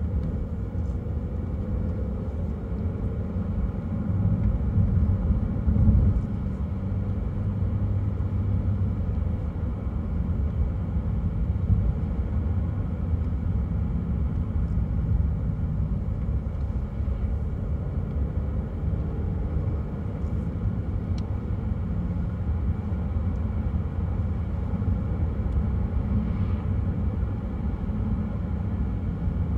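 Car driving along a road: a steady low rumble of engine and tyres, with a brief louder bump about six seconds in.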